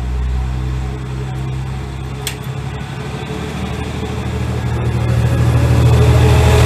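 Diesel railcar MRT304 moving off and passing close by, its diesel engine giving a steady low drone. Wheel and rail noise grows louder over the last couple of seconds as the car goes past.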